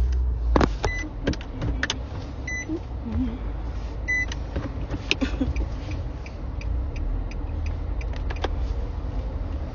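Low rumble of a car with scattered clicks and knocks, and a short beep repeating three times, about every second and a half, in the first half.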